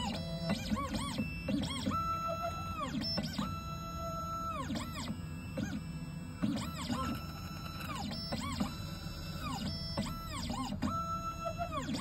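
CNC key-cutting machine running, its stepper motors whining in repeated rising, level and falling tones as the carriage moves the cutter along the key blade, over a steady motor hum.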